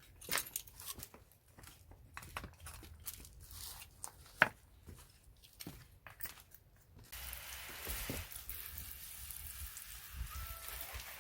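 Scattered small clicks, taps and crinkling of kitchen handling, with one sharper tap midway; about seven seconds in it cuts to the steady hiss of rain.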